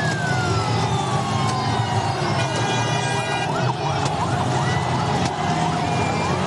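Large celebrating street crowd: a dense, unbroken din of cheering and noise over a steady low drone. High tones glide in pitch over it, one long falling slide at the start, then many short rising ones in the middle.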